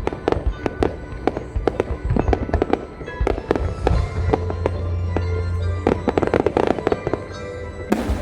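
Fireworks going off in quick, irregular succession, with many sharp bangs and crackles, over music with steady held notes.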